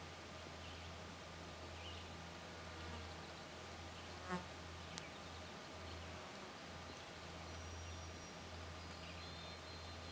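Deer fly buzzing as it beats its wings, trapped in a spider web, in spells broken by short pauses. A brief sharp click about four seconds in, and a fainter one shortly after.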